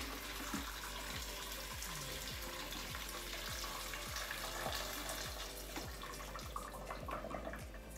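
About a litre of water poured in a steady stream from a plastic jug into a stainless steel pressure cooker holding a whole chicken and vegetables, tapering off near the end.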